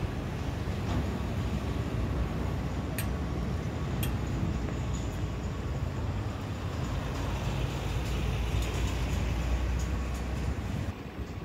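City street traffic: a steady low rumble of vehicles, with a couple of sharp clicks about three and four seconds in. The rumble eases just before the end.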